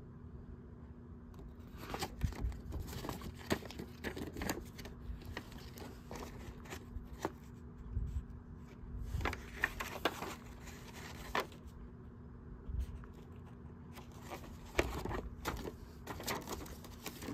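VHS tapes in plastic cases and their paper inserts being handled: irregular clicks, taps and rustling of plastic and paper.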